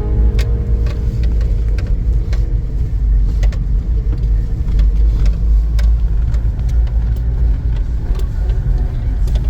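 Steady low road and engine rumble of a car being driven, heard from inside, with scattered sharp clicks and knocks over it.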